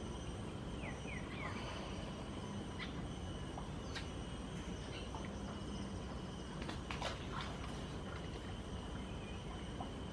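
Outdoor wetland ambience: a steady hiss and low hum with a faint high steady buzz, broken by scattered short bird chirps, three quick falling ones about a second in and a small cluster around seven seconds.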